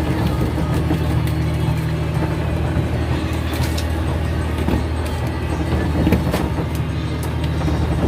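An engine running steadily with a low drone, with a couple of short knocks about three and a half and six seconds in.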